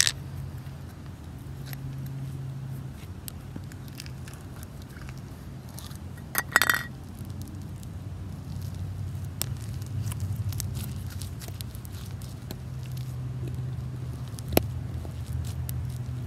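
Purple slime squeezed and pressed between the hands, giving soft crackles and small clicks, with one louder crackling squish about six and a half seconds in and a sharp click near the end.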